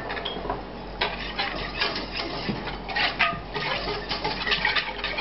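Wooden spoon stirring and scraping around a non-stick saucepan, working cream into a roux for a béchamel sauce. Irregular scrapes and light knocks, picking up about a second in.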